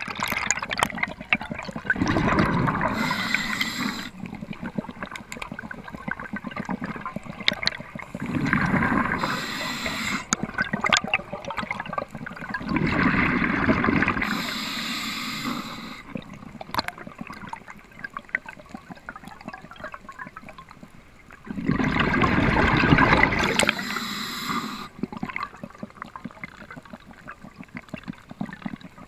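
Underwater rushing and gurgling of water against an action camera's housing as a diver swims. It swells up loudly four times, each swell ending in a brief hiss, with quieter rushing and small clicks between.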